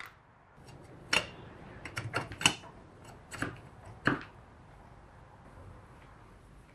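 Light metal clicks and taps, about half a dozen spread over a few seconds, as the chokes and auxiliary venturis are slid out of the barrels of a Dellorto DHLA carburetor's aluminium body. The sharpest knocks come about two and a half and four seconds in.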